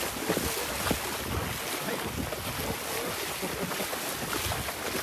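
Steady rain and wind rushing over a phone microphone, with feet splashing through shallow floodwater near the start.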